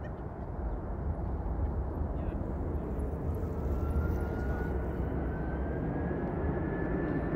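McDonnell Douglas MD-11 trijet on its takeoff roll, its engines at takeoff power: a steady jet rumble that grows steadily louder. From about three seconds in, a thin whine rises slowly in pitch.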